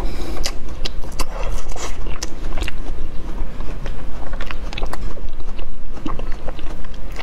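Close-miked chewing of a strawberry QQ gummy candy dipped in yogurt: a steady stream of irregular mouth clicks.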